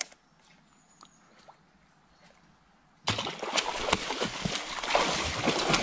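A hooked fish thrashing at the river surface, splashing loudly and continuously, starting suddenly about three seconds in after near quiet with a few faint ticks.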